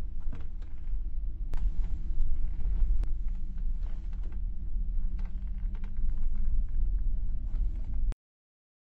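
Low, steady street rumble of passing traffic, with a few faint clicks; it cuts off abruptly near the end.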